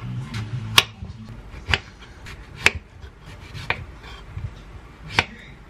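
Kitchen knife slicing a peeled white peach on a wooden cutting board, the blade knocking on the board five times, about once a second.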